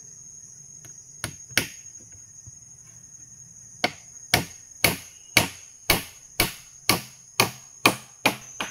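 Hammer blows on wood, driving nails: two strikes about a second in, then a steady run of about ten blows, roughly two a second.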